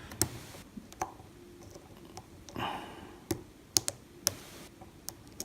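Light, irregular metallic clicks of a lock pick and tension wrench working the pins of an old five-pin Ruko 500 oval cylinder lock, as pins set and drop during single-pin picking. The clicks come one at a time, several of them in the second half.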